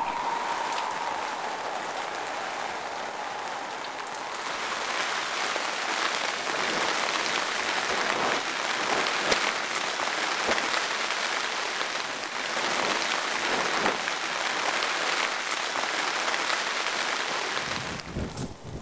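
Rain pattering steadily, a dense hiss full of small drop ticks, slightly louder from about four seconds in.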